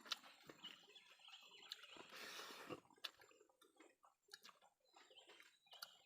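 Faint chewing and small mouth clicks of someone eating, with scattered soft ticks.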